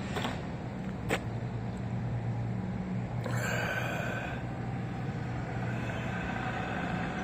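A motor vehicle engine running steadily as a low hum, with a sharp click about a second in and a brief hiss with a whine about three seconds in.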